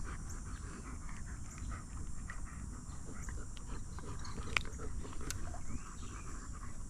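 Faint sounds of dogs close by, over a steady low rumble, with scattered light clicks and a sharper click about four and a half seconds in.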